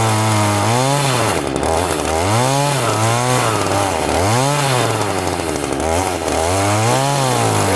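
Ryobi RY3714 two-stroke gas chainsaw cutting into a shrub stump at ground level. The engine runs steadily and revs up and back down about five times in short surges.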